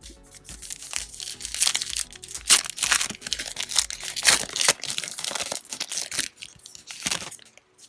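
A trading card pack's wrapper crinkling and tearing as it is ripped open, with the cards rustling out, in quick irregular bursts that stop shortly before the end.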